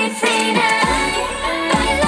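K-pop dance-pop song played loud over a stage sound system, with female vocals; the bass drops out and comes back in just under a second in.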